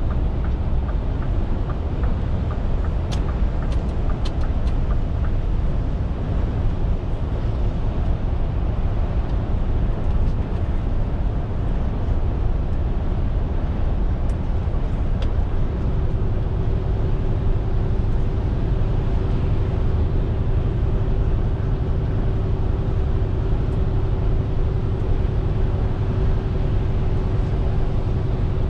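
Scania R450 lorry on the move: steady engine and road rumble, with a few faint ticks early on and a steady droning hum that comes in about halfway through and holds.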